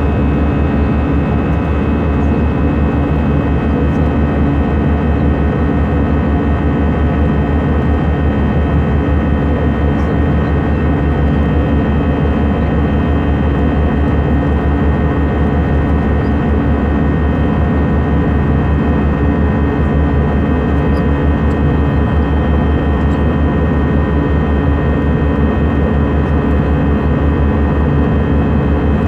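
Cabin noise of an Airbus A320-214 climbing after take-off, heard from a window seat beside the engine: its CFM56-5B turbofans running steadily, a constant drone with several held whining tones over a deep rumble.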